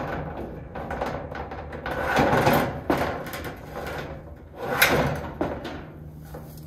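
Corrugated painted steel fence panel scraping, flexing and knocking against the metal fence post as it is worked into place by hand, with a sharp knock about three seconds in and the loudest clank about five seconds in.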